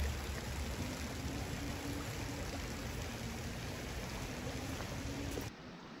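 Shallow creek water running over stones, a steady rush, dropping to a quieter wash about five and a half seconds in.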